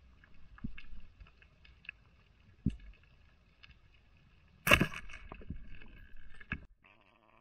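Underwater: a speargun is fired about two-thirds of the way in, one sharp loud crack with a short ringing tail and a few knocks after it. Faint clicks and soft low thumps are heard before it.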